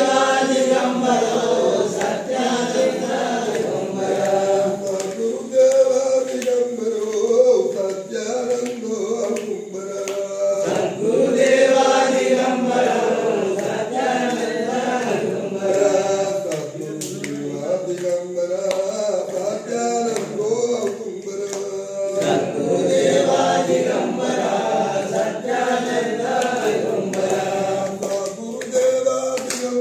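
A group of voices singing a devotional chant together, with hand claps running through it.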